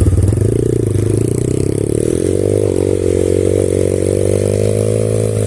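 Single-cylinder engine of an off-road pit bike running under load. It is choppy at first, then its revs climb about two seconds in and hold steady.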